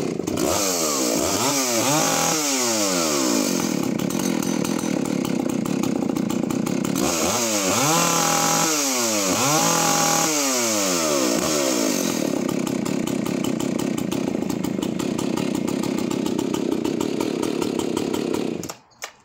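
Husqvarna 285CD two-stroke chainsaw running in free air, revved up and down several times in two spells, a second in and again about eight seconds in, then running steadily until it cuts off near the end.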